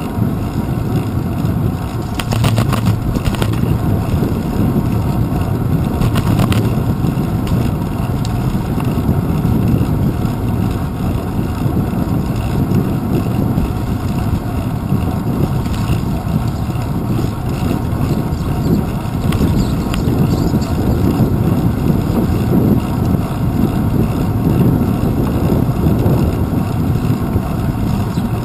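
Steady low rumble of wind and road vibration on a handlebar-mounted GoPro Hero 2 riding a bicycle along a paved path, with a few brief clicks and rattles about three seconds in and again around six seconds.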